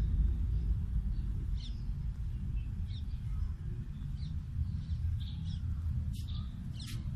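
Small birds chirping in short, scattered high calls, more of them near the end, over a steady low rumble.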